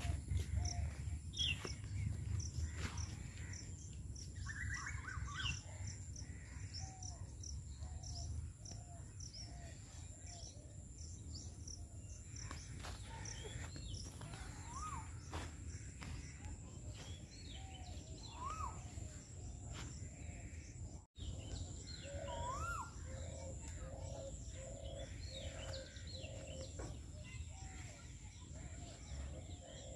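Many birds chirping and calling outdoors, with a few clear whistled notes that rise and fall and, later on, a run of evenly repeated lower notes, over a steady low rumble. The sound drops out for an instant about two-thirds of the way through.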